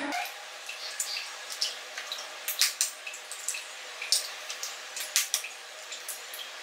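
Eggs being cracked open over a glass bowl: an irregular scatter of sharp clicks and cracks of eggshell, with wet drips as the egg falls in.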